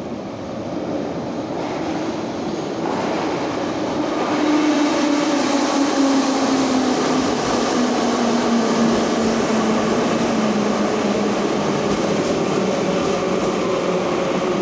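Metro train pulling into an underground station: its rumble grows loud about four seconds in as it runs along the platform, with a whine that slowly falls in pitch as the train brakes.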